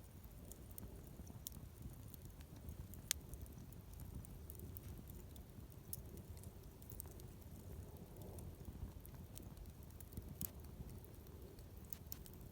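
Wood bonfire crackling softly with scattered small pops and snaps, over a low steady rumble. A sharper pop comes about three seconds in and another about ten seconds in.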